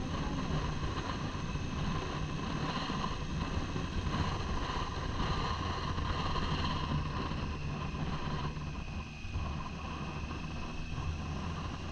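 Triumph motorcycle engine running steadily under way, with wind rushing over the helmet-mounted microphone; the engine eases off briefly about nine seconds in.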